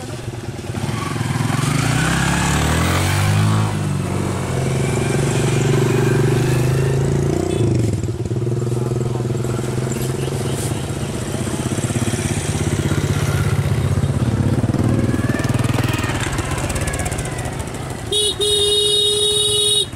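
Motorbike engines running close by, climbing in pitch over the first few seconds and then running steadily. Near the end a motorbike horn is held for about two seconds.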